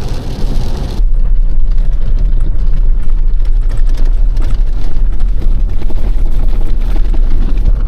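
A vehicle's road and engine rumble heard from inside the cabin while driving: a loud, steady, low drone that starts abruptly about a second in.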